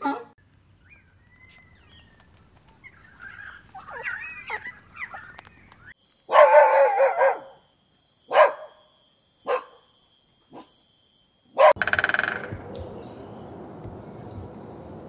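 A dog vocalising: a drawn-out call with a wavering pitch, followed by several short barks about a second apart, after faint squeaky sounds at the start.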